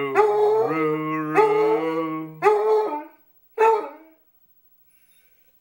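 Basset Hound howling: one long wavering howl, with a man's low sung note held under it, then two short howls that fall away in pitch, and it stops.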